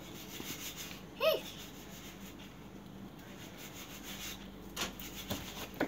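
Quiet room with one short, high-pitched vocal sound from a young child, rising and falling, about a second in, and a few soft knocks near the end.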